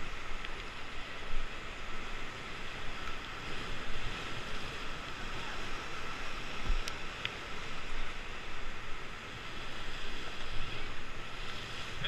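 Whitewater rapids rushing and splashing around an inflatable raft, heard close up from a camera on the raft, with a couple of sharp ticks about seven seconds in.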